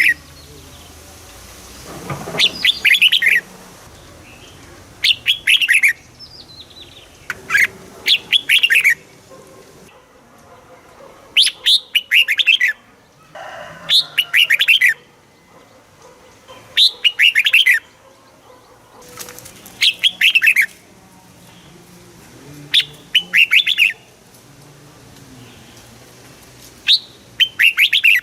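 Red-whiskered bulbul singing: short, rapid phrases of bright whistled notes, about nine of them, each about a second long and repeated every two to three seconds.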